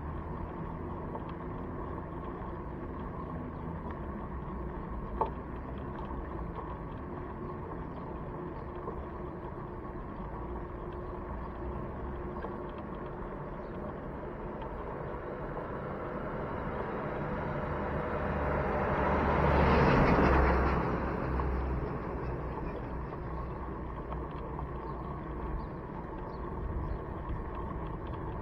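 Steady engine and road noise of a moving vehicle: a low drone with a faint constant hum. About twenty seconds in, a louder rush of noise swells up over a few seconds and fades again. There is one sharp click about five seconds in.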